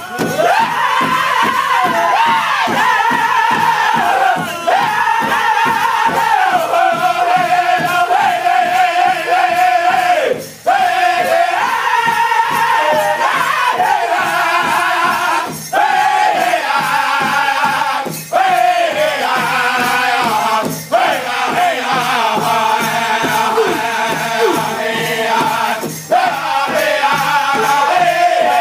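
Powwow drum group singing together over a steady, fast beat struck in unison on one large hide bass drum. The melody falls in phrases, with brief breaks for breath between them.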